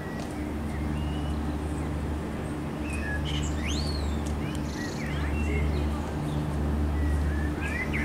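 Small birds chirping in short rising and falling calls, a few around the middle and more near the end, over a continuous low mechanical hum that swells and fades every second or two.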